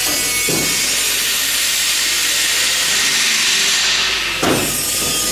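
Steady loud hiss with two short clicks, one about half a second in and one near the end, as skin pins are fitted with pin pliers into the riveted fuselage skin of a Lancaster bomber.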